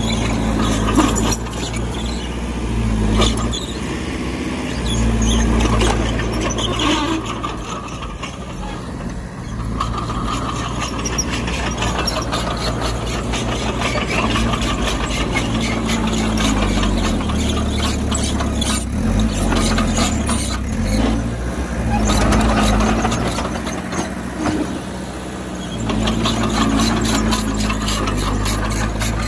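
Bulldozer working: its diesel engine runs with the revs rising and falling under changing load, over squealing and a steady clatter of clanks from the steel tracks.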